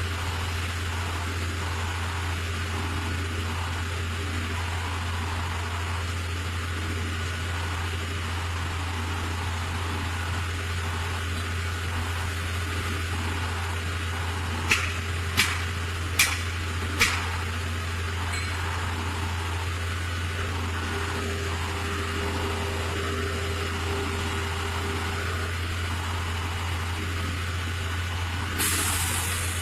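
Concrete pump truck's diesel engine running steadily with a low drone, four sharp metallic knocks about halfway through, and a short hiss near the end.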